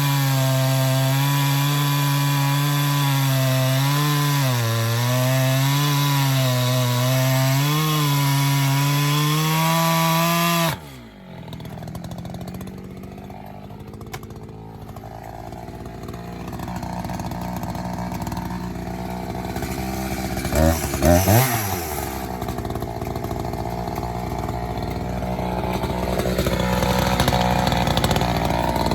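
Chainsaw with a full-chisel chain cutting a log at full throttle, its engine note dipping as the chain bites into the wood. About eleven seconds in the throttle is released and the saw drops to idle, with a quick throttle blip near the middle of the idle.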